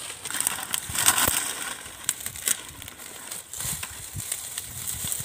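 Dry palm fronds and litter crackling and crunching underfoot and under hand as fallen palm fruits are gathered from the ground: irregular rustles and snaps, loudest about a second in.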